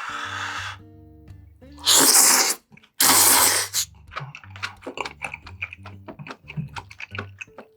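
Close-miked eating: two loud breathy bursts of a second or less each, then a quick run of wet chewing clicks and smacks. Soft background music plays underneath.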